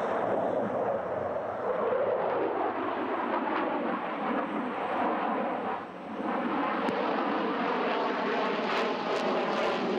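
Jet noise from a twin-engine MiG fighter's turbofans as it flies display manoeuvres overhead. It is a steady, dense noise whose pitch wavers and slides as the jet turns, and it briefly drops about six seconds in.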